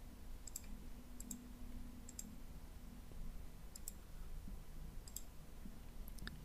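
Faint computer mouse clicks, about six of them spaced a second or so apart, over a faint low hum.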